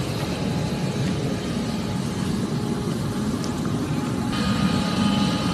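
Steady low rumble of aircraft engines running on an airport apron, with a thin high whine joining about four seconds in.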